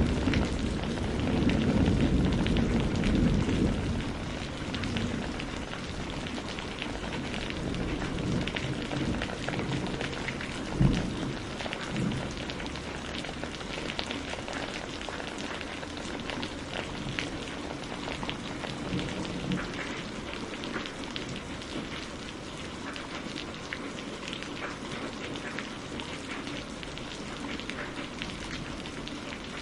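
Heavy rain falling steadily, with many close drop ticks. A low rumble of thunder fills the first few seconds and fades. A single sharp thump comes about eleven seconds in, with a smaller one just after.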